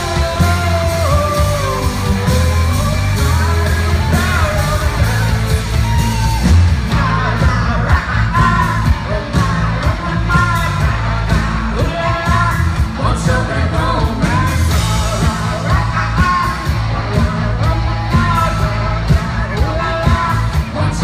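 A rock band playing a song, with a lead singer's voice carried over a steady drum beat and heavy bass.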